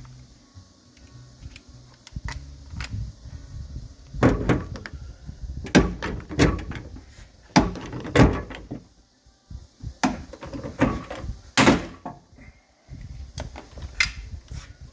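Irregular metallic clunks and knocks of a replacement rear-door latch being worked into the steel door shell of a Ford Super Duty extended cab, about eight heavy knocks between quieter rattling.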